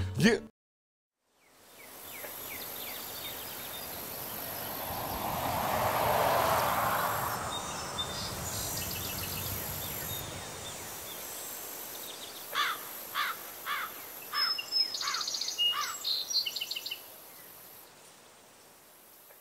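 Outdoor nature ambience: a steady high insect drone under a soft rushing hiss that swells and eases off about six seconds in. Birds call from about twelve to seventeen seconds in with a quick series of short down-slurred notes and a few higher whistles, and the ambience fades near the end.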